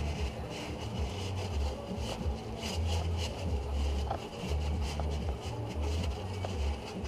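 Paper towel wiping and rubbing around the oil filter mount, in irregular rustling strokes, with loud low rumbling bumps coming and going underneath.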